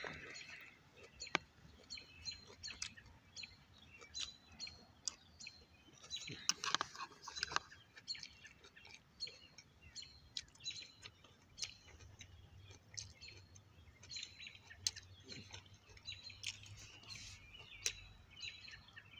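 Small birds chirping, short high chirps repeating every half second or so, with close mouth and chewing noises from eating bread.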